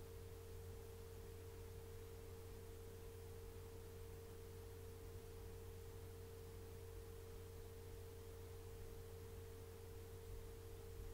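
Faint steady tone, held at one pitch, over a low hum and light hiss; nothing else sounds.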